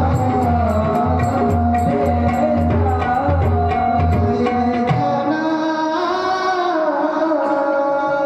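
Devotional bhajan music: tabla playing under singing and a steady sustained drone. The tabla stops about five seconds in, leaving a long held note that wavers and rises.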